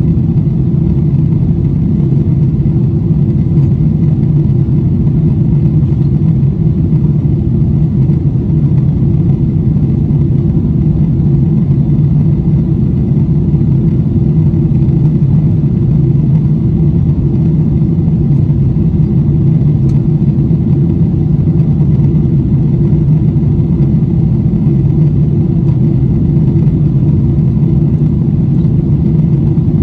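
Steady low drone inside the cabin of a Boeing 747-8i, from its engines and the rush of air, with no change in pitch or level.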